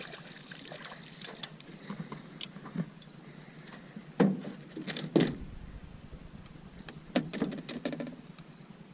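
Close handling noise: scattered clicks and rustles with a few sharper knocks, the loudest about four, five and seven seconds in.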